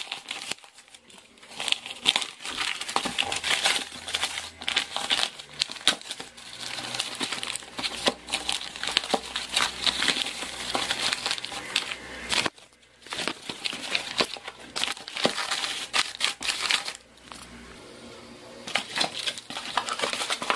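Brown paper parcel wrapping being torn open and crumpled by hand: a continuous crackling and rustling of paper, with a short break about halfway through.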